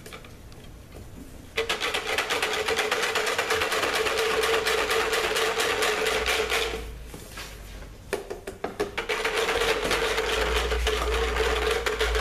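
Metal whisk beating fast against the inside of a plastic pitcher as lye is stirred into water: a rapid rattling clatter. It starts about a second and a half in, breaks off for about a second past the middle, then resumes.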